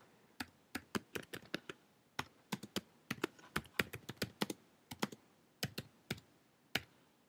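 Typing on a computer keyboard: irregular runs of quick key clicks, with a short pause about two seconds in and fewer, more spaced-out keystrokes near the end.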